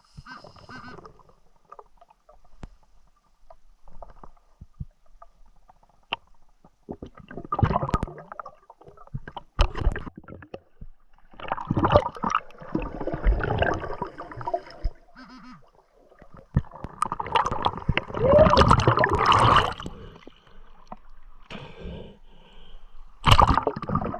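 River water sloshing and gurgling around a freediver in irregular bursts, some a second long and some several seconds, with quieter stretches between.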